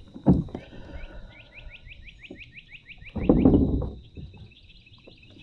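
A bird trilling: a rapid run of about a dozen short falling chirps lasting just over a second. Two bursts of low rushing noise, a brief one at the start and a louder one of nearly a second about three seconds in, with a faint steady high whine behind.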